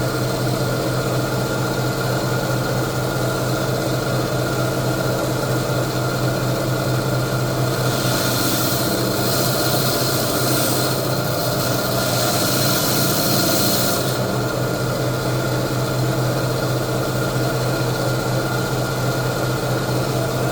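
Electric coral saw running steadily with a motor hum. From about 8 to 14 seconds in, a harsher hiss joins it as the blade cuts through hammer coral skeleton.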